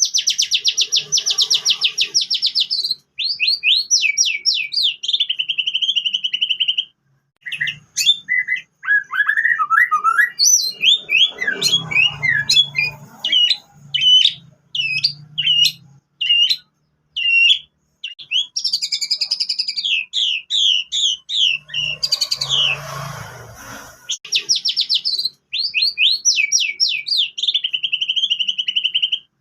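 White-rumped shama singing a varied song filled in with canary-style phrases: fast rolling trills, quick slurred notes and short whistles, with short pauses between phrases. The opening trill-and-buzz phrase comes again near the end.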